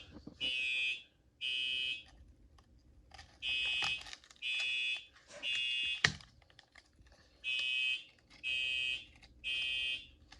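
Fire alarm sounding in the temporal-three evacuation pattern: three short high beeps, a pause, then three more, repeating. The alarm was set off by a pulled Honeywell T-Bar dual-action pull station. Light clicks of handling fall between the beeps, with one sharp click about six seconds in.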